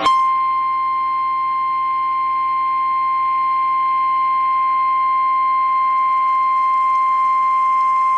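Emergency alert attention tone: a single steady high-pitched tone near 1050 Hz, the weather-radio warning alarm tone that comes in sharply and signals that a warning message is about to be read.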